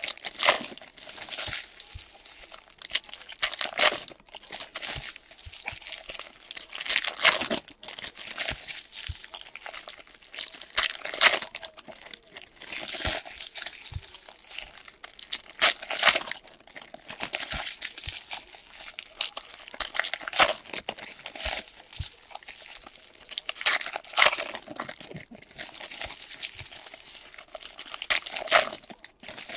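Trading-card pack wrappers and packaging crinkling and tearing as a hobby box is opened, in irregular bursts.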